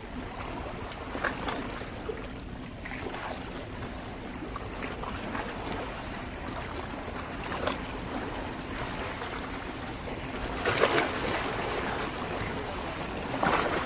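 Small sea waves washing and splashing against shoreline rocks, a steady wash with a few louder splashes, the biggest about eleven seconds in and another near the end.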